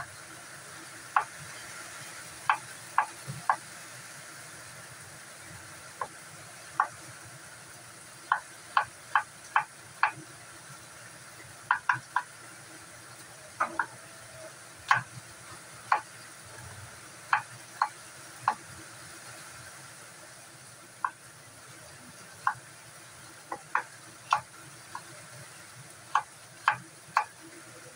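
Kitchen knife tapping a wooden chopping board as potatoes are diced: sharp, irregular knocks, sometimes in quick runs of three or four.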